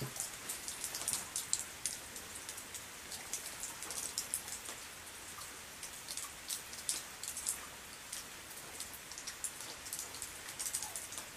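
Quiet rain pattering, heard as an irregular scatter of sharp drop ticks over a faint hiss, with no gunshot.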